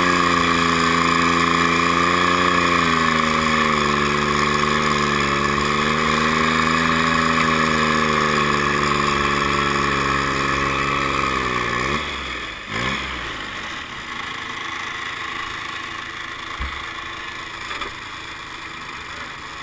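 Diesel garden pulling tractor's engine running hard at high revs, its pitch wavering slightly. About twelve seconds in it is throttled back: the pitch drops sharply, blips up once, and the engine runs on much quieter.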